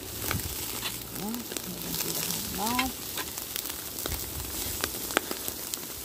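Chicken sizzling over a flaming charcoal grill, a steady hiss with sharp pops and crackles as fat drips into the fire.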